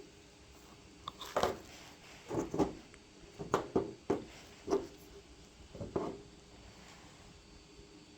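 Headlight bulbs being handled and compared: a string of about nine light clicks and knocks in the first six seconds, then only faint room noise.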